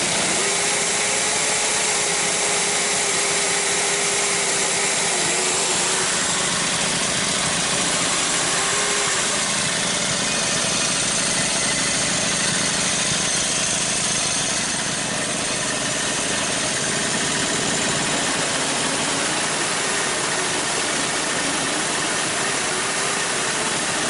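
The cart's motor running steadily and driving the roller chains over their sprockets and the newly fitted idler, a continuous mechanical whir and chain clatter with a faint whine that comes and goes. This is the first run of the completed drive train, with the idler holding the chain snug.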